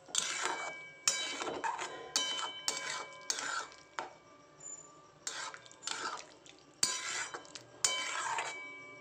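A metal spatula stirring potatoes and pointed gourd in a metal kadai, scraping and clinking against the pan in repeated strokes. Each stroke leaves a short metallic ring, and there is a pause of about a second near the middle.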